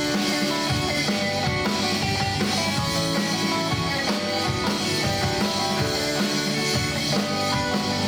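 Live rock band playing: electric guitars, electric bass and a drum kit keeping a steady beat.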